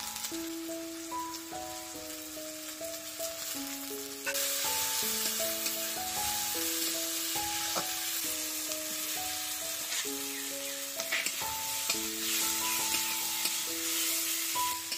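Onions and tomatoes sizzling in oil in a wok (kadai) over a wood fire. The sizzle grows louder about four seconds in, and a metal spatula scrapes the pan as the food is stirred. Soft background music with a simple melody plays over it.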